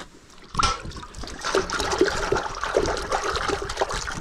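Water splashing and trickling as fish scales are rinsed off after handling trout. It starts suddenly about half a second in and runs on unevenly.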